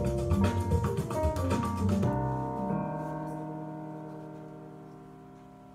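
Digital keyboard played with a piano sound: a quick flurry of notes, then a chord struck about two seconds in and held, fading slowly away.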